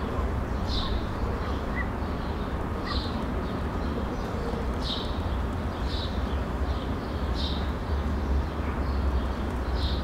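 Quiet city street ambience: a steady low city rumble, with short high bird chirps every second or so.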